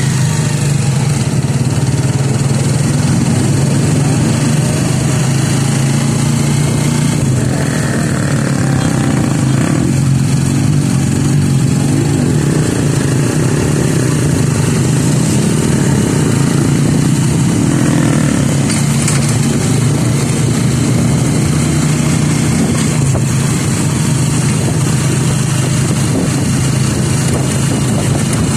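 Steady drone of a vehicle's engine with road noise, heard from inside the moving vehicle.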